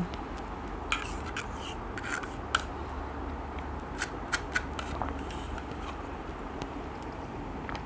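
A spoon scraping and clicking against the inside of a plastic yogurt cup as yogurt is scooped out: a series of short, irregular scrapes and clicks.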